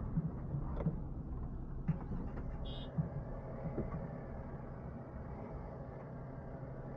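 Camper van engine running steadily at low revs, with a few light clicks and knocks in the first three seconds.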